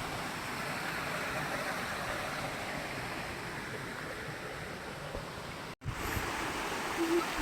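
Steady rushing water of a waterfall, an even hiss. It cuts out abruptly for a split second near the end, then resumes.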